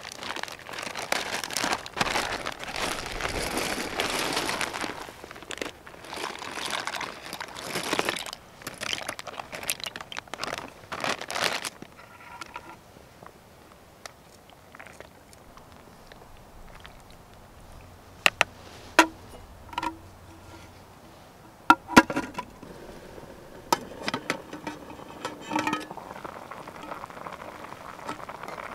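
Food bubbling and crackling in an aluminium pot on a Trangia Storm Cooker alcohol stove, loud for the first dozen seconds and then quieter. A wooden spoon stirs it, and a few sharp clinks ring on the pot in the second half.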